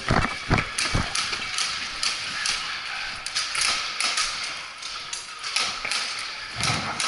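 Footsteps of an airsoft player moving on a hard floor, quick heavy steps at first, then softer shuffling with small taps and clicks of gear, and heavier steps again near the end.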